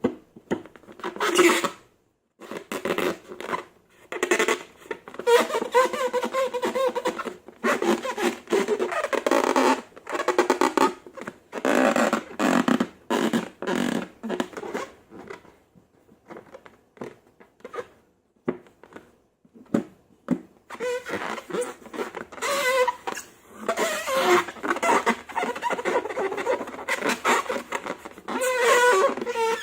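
Hands squeezing and kneading slime: irregular wet squishes and pops of trapped air, one burst after another with short gaps.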